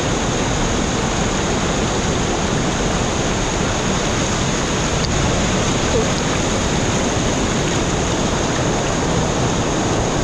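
Waterfall crashing into its plunge pool, a loud, steady rush of falling water.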